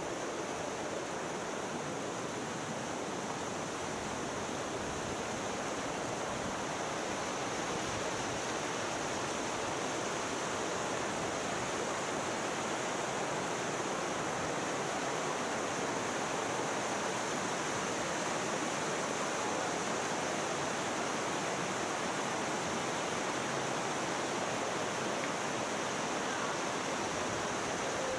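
Canyon stream rushing over rocks and small cascades, a steady, even water noise.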